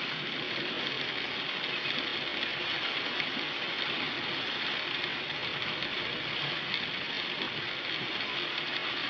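Steady road and tyre noise heard from inside a moving car on a snowy road: an even hiss with no distinct knocks or engine note standing out.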